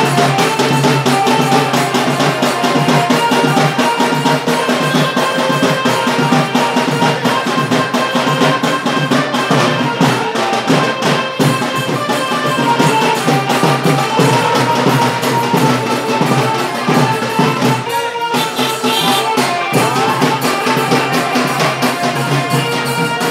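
Loud music with a steady drumbeat under a melody, briefly dipping about three quarters of the way through.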